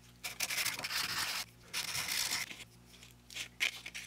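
End of a turned wooden handle sanded by hand on a flat sheet of sandpaper: two long rubbing strokes, then a few short rubs near the end.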